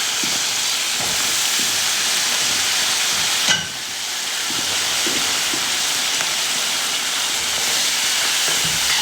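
Pickled vegetables and hotpot base sizzling steadily in hot oil in a wok. A single short knock comes about three and a half seconds in, after which the sizzle briefly drops.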